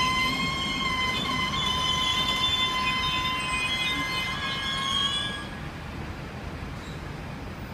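Passenger train rolling along the track with a steady, high-pitched wheel squeal over the rumble of the carriages. The squeal stops about five seconds in and the lower rumble of the train continues.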